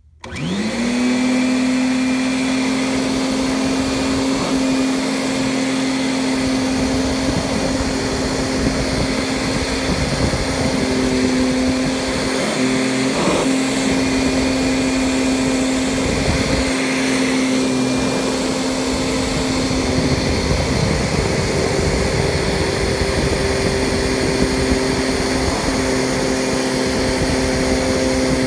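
Kirby Sentria 2 upright vacuum cleaner switched on, its motor whining up to speed in about half a second, then running steadily with a constant hum over a rushing airflow as it is pushed over carpet.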